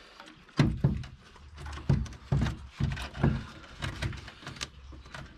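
A string of irregular knocks and clunks from a car intercooler and its charge-air hose being set into place against the car's front radiator support.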